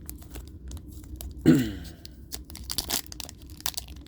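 Foil trading-card booster pack wrapper tearing and crinkling, with quick rustling clicks from the packaging and cards being handled. A short vocal sound cuts in about a second and a half in.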